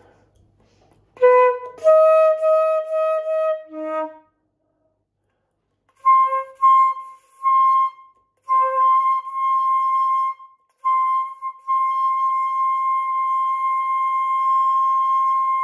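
Concert flute being played: a run of short repeated notes ending on a low note, a pause of about two seconds, then more short repeated higher notes leading into one long held high note.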